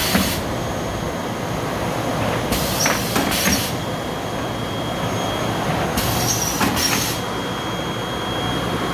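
Seedling-tray washing machine running, a steady mechanical drone with a burst of hissing about every three and a half seconds, each lasting about a second, with occasional sharp clicks.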